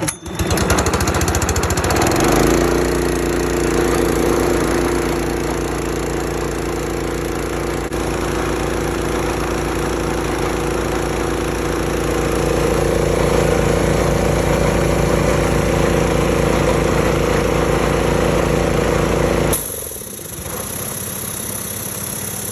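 Gas engine of an MTM portable air compressor, pull-started on choke from cold, catches right away and settles within about two seconds into a steady, rapidly pulsing run. About 19 seconds in, the engine sound drops off abruptly to a quieter, different noise.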